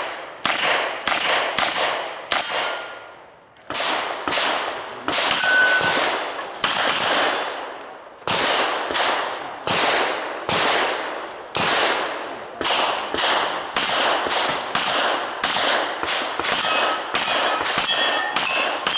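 A string of revolver shots fired in quick succession, each report echoing briefly, with a few short pauses between groups. Several shots are followed by the short ring of struck steel plates.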